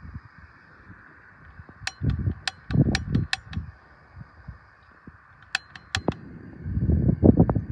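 Gas camping stove hissing steadily, with a run of sharp clicks about two to three and a half seconds in and a few more around six seconds. Low knocks and rustling from handling come near the end.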